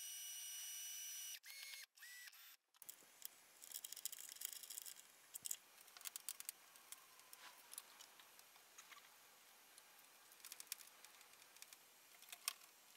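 Cordless drill motor running with a steady whine, spinning a small pivot part held in its chuck, then two short bursts of the drill before it stops. After that come light scattered clicks and taps of metal parts being handled, with one sharper tick near the end.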